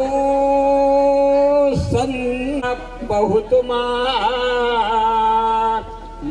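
A solo voice chanting a devotional wedding verse in the mangalashtak style. It holds one long note for nearly two seconds, breaks briefly, then moves into a wavering, ornamented line.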